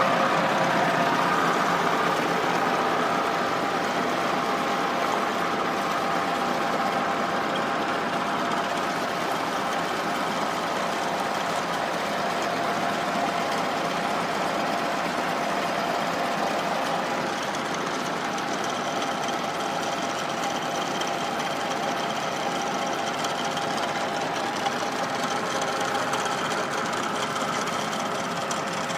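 Massey Ferguson 385 tractor's four-cylinder diesel engine running steadily under load, driving a tubewell pump through belts and a pulley shaft, with a mechanical knocking rhythm from the running drive.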